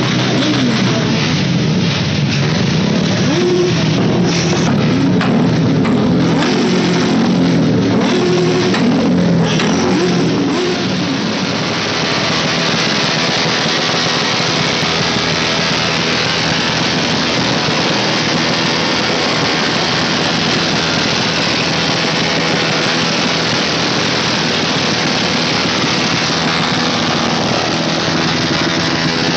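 Music over a crowd at first. From about eleven seconds in, a motorcycle engine with an aftermarket exhaust is revved hard and held, with its rear wheel spinning, making a loud, steady exhaust noise.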